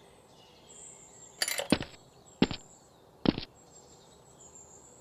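A few sharp plastic clicks and clacks of a toy foam-dart blaster being handled, spread over about two seconds.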